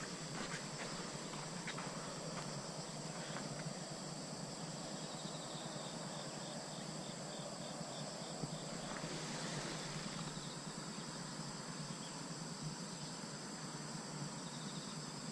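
Insects buzzing steadily, high-pitched, with a pulsing trill that comes and goes. A few footsteps on a dirt path in the first few seconds.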